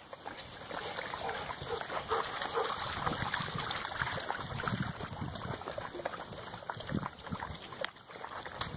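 Dogs splashing as they wade in shallow lake water, with a few short, faint dog barks about two seconds in.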